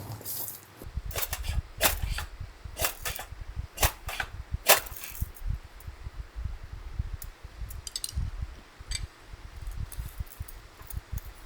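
Strong wind buffeting the microphone in gusts, with a run of sharp clinks and knocks during the first five seconds and a few fainter ticks later.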